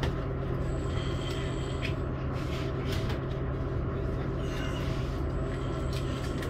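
Interior running noise of a Bombardier Talent 2 (DB class 442) electric multiple unit on the move: a steady low hum with the rush of the ride, a few faint high tones and occasional light clicks.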